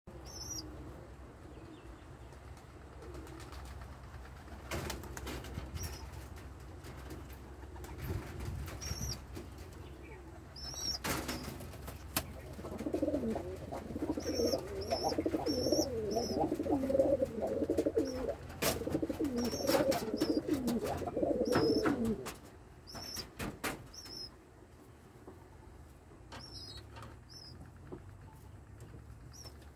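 Domestic pigeons cooing in a loft: a run of low, wavering coos for about ten seconds in the middle, courtship cooing as the pair bill each other. Scattered sharp taps and wing flutters come in between, and faint high chirps recur throughout.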